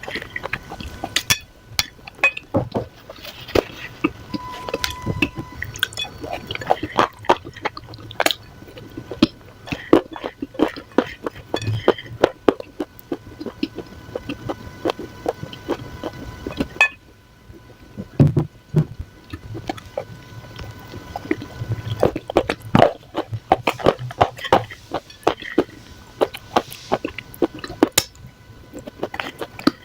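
Clay crumbs crunching and crumbling by hand: a dense run of small sharp crackles and crunches, with a short pause about two-thirds of the way through.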